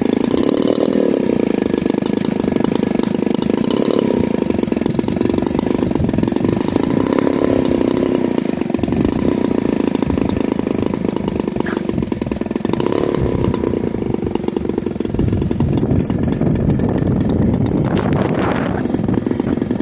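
The 50cc gasoline engine of a Revolver aircraft running continuously, its pitch rising and falling a little.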